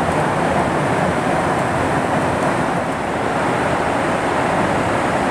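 Steady roar of a Boeing 737-800 jet airliner, even in level with no change in pitch.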